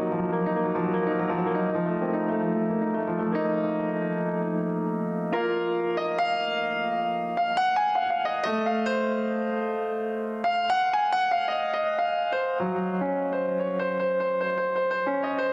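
Stage keyboard playing a piano sound: sustained chords struck by hand every second or two, with higher melody notes over them and no beat underneath.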